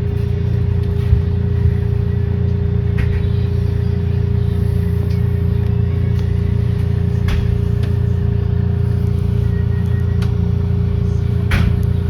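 SEPTA Route 34 trolley car running: a steady low rumble with a constant hum, broken by a few sharp clicks, most clearly about three, seven and eleven seconds in.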